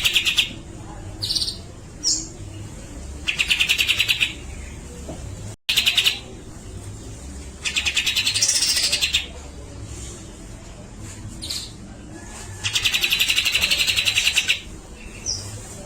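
Grey-cheeked bulbul (cucak jenggot) singing: three loud, fast rattling trills of one to two seconds each, about four seconds apart, with short sharp single notes between them.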